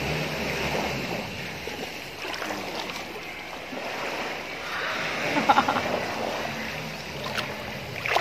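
Shallow sea water sloshing and splashing around a person wading in, with a few sharper splashes.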